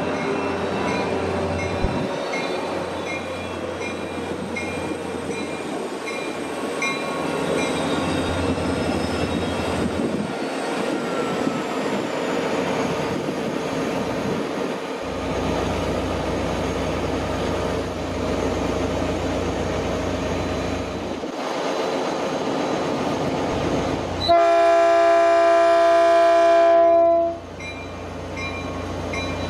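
Caltrain EMD F40PH-series diesel locomotive rumbling along the platform with its train of passenger cars, while a level-crossing bell dings steadily in the background. About 24 seconds in, the locomotive sounds one long chord on its horn, about three seconds, the loudest sound here, which cuts off sharply.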